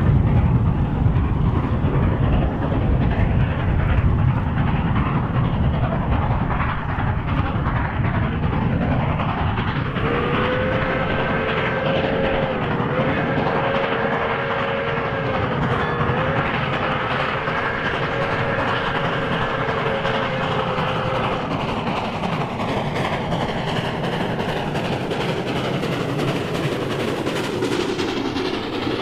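A steam train running, with steady rumble and rail clatter. About ten seconds in, its chime whistle blows one long call lasting about eleven seconds, dipping briefly twice as the whistle is worked.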